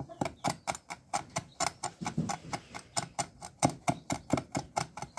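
Cleaver chopping hạt dổi seeds on a wooden chopping board: a quick, even run of knocks, about five a second.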